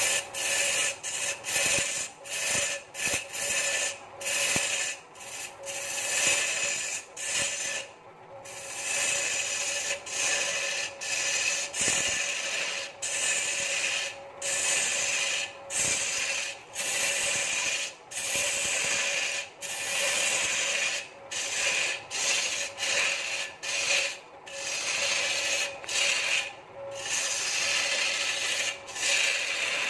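Hand-held turning tool cutting into a large wooden stool blank spinning on a belt-driven wood lathe: a scraping hiss broken every second or so by short gaps as the tool comes off the wood, over a steady hum from the lathe.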